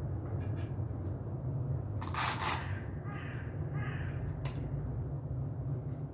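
A crow cawing several times, loudest about two seconds in, over a steady low hum; a single sharp click about four and a half seconds in.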